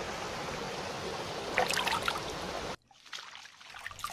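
Stream water running and trickling steadily over rock, with a brief louder patch of splashing a little over halfway; the sound cuts off abruptly about two-thirds of the way through.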